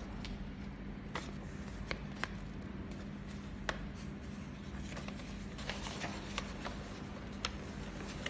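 Sheets of paper rustling and a cardboard box being handled, with a handful of sharp taps and clicks and a denser stretch of rustling a little past the middle, over a steady low hum.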